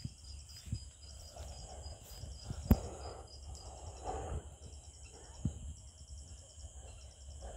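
Insects chirping steadily in a fast, high, pulsing trill over a low rumble, with one sharp knock about two and a half seconds in.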